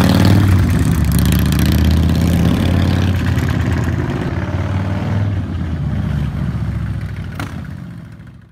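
Motorcycle engine running with wind and road noise. It stays steady, then gradually fades and cuts off at the very end.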